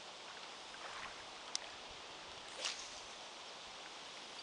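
A spinning reel's bail snapping shut with one sharp click about one and a half seconds in, just after the cast, then a brief rustle about a second later, over a faint steady outdoor background of wind and lapping water.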